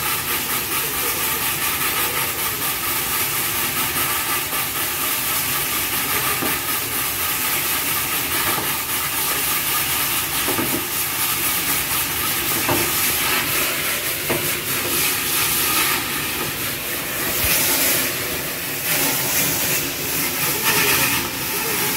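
Steady, loud hissing rush of cleaning equipment running inside a vertical tank, with a few faint knocks.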